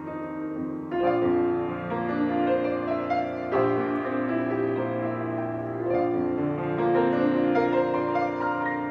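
Grand piano played solo, a slow melody over sustained chords, with new chords struck every second or two.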